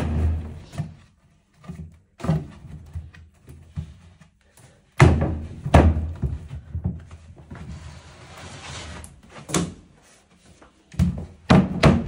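Knocks and thunks of white cabinet panels being pushed and tapped into place while a flat-pack cabinet is assembled. The knocks are spread out, with the loudest about five seconds in and a quick cluster near the end.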